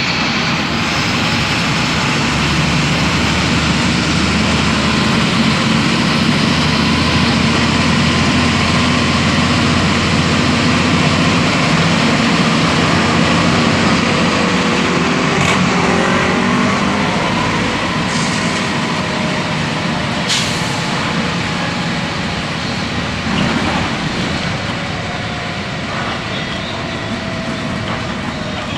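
Volksbus 17.230 EOD bus's diesel engine running under way, its engine note shifting up and down in pitch, with two sharp clicks about 15 and 20 seconds in. The sound eases off somewhat near the end.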